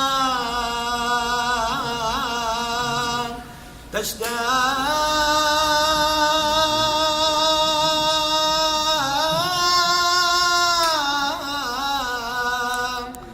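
A man singing a line of Arabic love poetry in a slow, chanted style, stretching the words into long held notes with small wavering turns. There are two phrases, with a short breath between them about three and a half seconds in.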